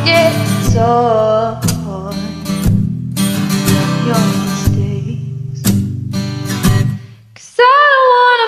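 A woman singing a slow ballad karaoke-style into a microphone over a prerecorded backing track. She breaks off briefly near the end, then holds a note with vibrato.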